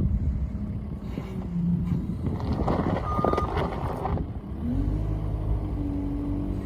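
New Holland L220 skid steer's diesel engine running at a low idle, with a short single beep about three seconds in. The engine then revs up near the end and holds at the higher speed.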